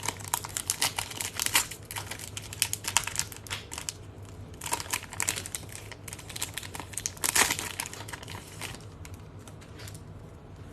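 A hockey card pack's wrapper crinkling and rustling as it is opened by hand and the cards are handled, in quick crackling bursts that die down about three quarters of the way through.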